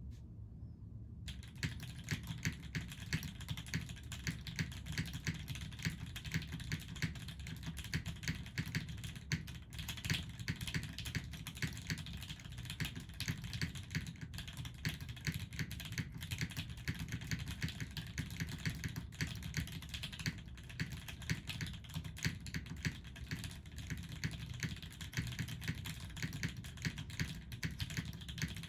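Continuous fast typing on a TGR Jane V2 CE custom mechanical keyboard. It has a top-mounted carbon-fibre plate, lubed and filmed Gateron Ink linear switches, and GMK keycaps. The key presses start about a second in and run on as a dense, uneven clatter.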